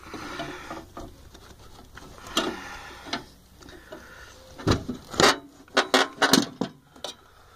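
Handling noise from a metal military anemometer-wind vane unit being moved around in its storage case. A brief rustle at first, a couple of single clicks, then a quick run of about eight sharp clicks and knocks a little past the middle.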